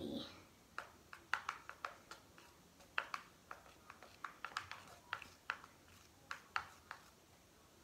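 A spoon stirring thick homemade slime in a small plastic pot: light, irregular clicks and taps, about three a second. The taps stop shortly before the end. The slime is nearly done, pulling away from the sides of the pot.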